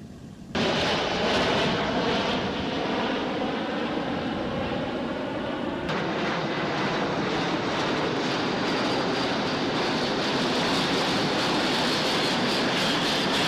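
Military transport aircraft engines running, a loud steady noise that starts abruptly about half a second in and changes abruptly at about six seconds.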